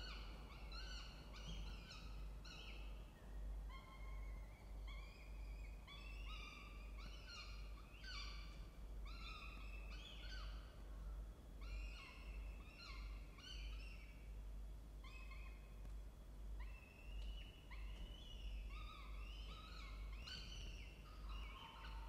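Peregrine falcon chicks food-begging with quick bursts of short, high, rising cheeps as they are fed, over a steady low hum.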